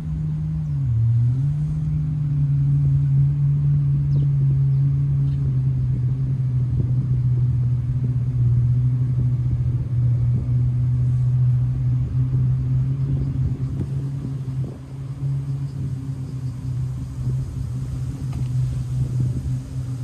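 Steady low hum of a ventilation fan blowing air out through a building's louvered vent. Its pitch dips briefly and recovers about a second in.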